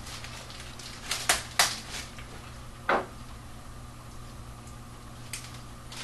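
Clear plastic packaging bags rustling and crinkling as model parts are lifted out of them, with a few sharp crackles in the first three seconds and one faint one later. A steady low hum runs underneath.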